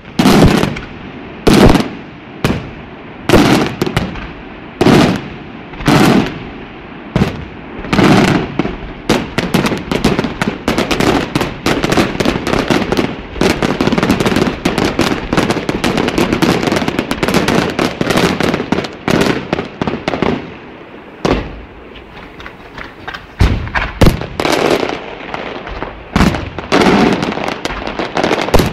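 Fireworks display: loud bangs about once a second, then a dense run of rapid crackling for about ten seconds in the middle, then separate bangs again near the end.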